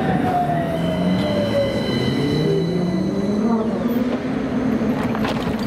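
An ATM 7500/7600-series low-floor tram (AnsaldoBreda Sirio) braking to a stop at a platform: its electric traction drive whines in several tones that mostly fall in pitch as it slows, over steady high-pitched tones. A few clicks come near the end.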